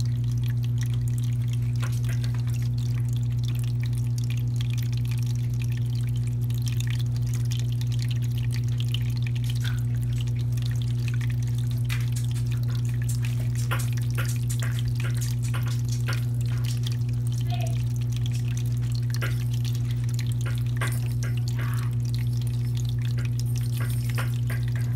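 Electric pump of a flower-top pet water fountain humming steadily, with water trickling and scattered faint drips.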